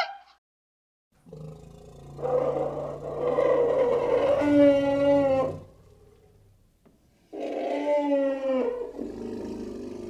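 Two drawn-out animal calls over a low steady hum: the first lasts about three seconds and wavers toward its end, the second, shorter, comes about seven seconds in.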